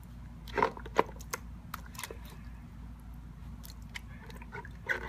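Pembroke Welsh Corgi puppy splashing and biting at the water in her water bowl: irregular small splashes and clicks, the loudest about half a second to a second in.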